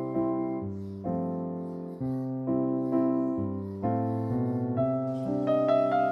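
Soft background piano music: slow sustained chords, a new one struck about once a second.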